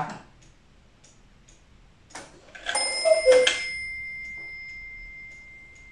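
Eight-day Black Forest cuckoo clock sounding the half hour: faint ticking, a click of the striking mechanism about two seconds in, then a single two-note cuckoo call, falling in pitch, over one high bell strike that rings on and slowly fades.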